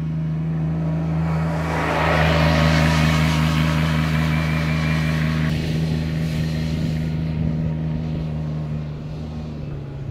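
A vehicle engine running steadily. It swells louder about two seconds in and eases off after about five seconds.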